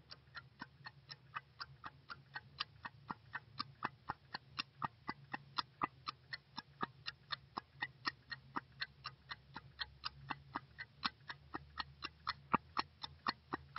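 Clock ticking rapidly and evenly, about four ticks a second, over a faint low hum.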